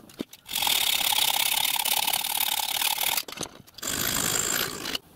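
Metal conduit tube clamped in a bench vice being worked with a hand tool: two spells of steady scraping, the first about two and a half seconds long, the second about a second, with a short break between.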